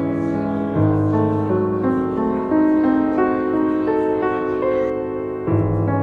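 Background piano music: held chords over a deep bass note, with the chord changing about a second in and again near the end.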